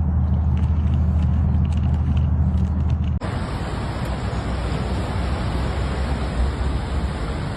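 A motor vehicle engine runs with a low, steady hum. About three seconds in it cuts off abruptly to a loud, steady rushing noise.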